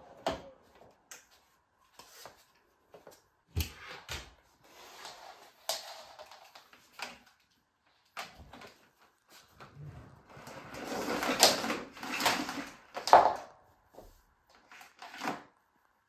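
Scattered plastic knocks, clicks and rustles of a Bosch bagless cylinder vacuum cleaner's wand, hose and body being handled with its motor off. A louder scraping, rustling stretch comes about two-thirds of the way through.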